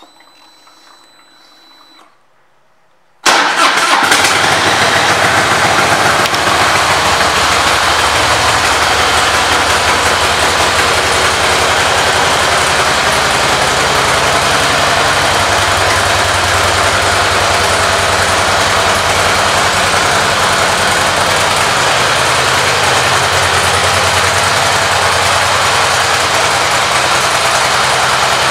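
2005 Harley-Davidson Softail Deluxe's Twin Cam 88B V-twin engine starting suddenly about three seconds in, then idling steadily and loudly.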